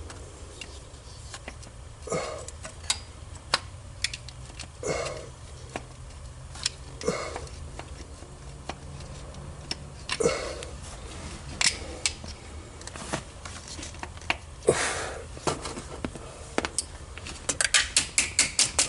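Scattered metal clicks and scrapes of a hand tool and bolt as an ignition coil's mounting bolt is started, ending in a fast run of ratchet clicks, about seven a second, as the bolt is run in.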